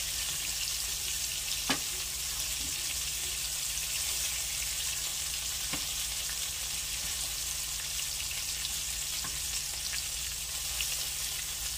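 Flour-dredged lamb chops sizzling steadily in hot oil in a frying pan, with a few sharp clicks, the loudest about two seconds in, as the chops are lifted out with a metal fork.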